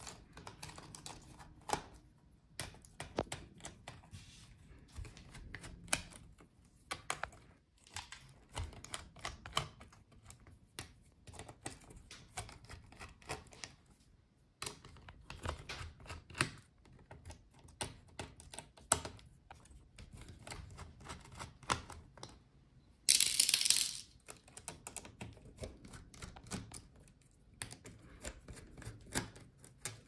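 Small screwdriver taking out laptop motherboard screws: scattered light clicks and taps of the bit, screws and tools against the plastic chassis and board. A brief loud rasp about a second long comes two-thirds of the way through.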